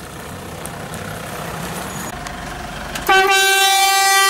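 An off-road vehicle running, its noise slowly growing louder, then about three seconds in a car horn sounds one loud, steady note that is still held at the end.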